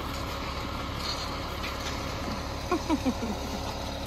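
Concrete mixer truck's diesel engine running steadily while it discharges down the chute. About three seconds in, three or four short falling squeaks cut through.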